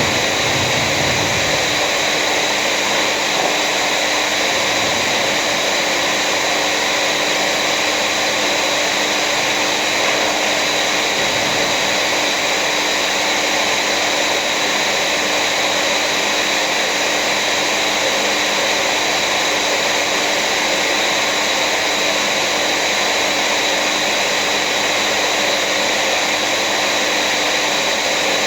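An electric motor-driven machine running steadily at constant speed: a loud, even hiss with a steady hum, unchanged throughout.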